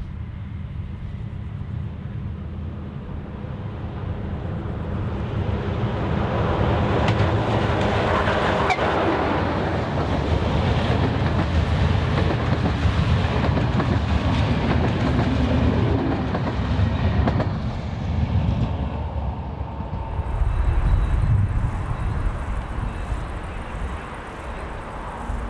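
MÁV class M41 diesel-hydraulic locomotive approaching with a passenger train. It grows louder over the first several seconds, then passes close, with the wheels clattering over the rail joints as the coaches go by. In the last few seconds a different steady low rumble takes over.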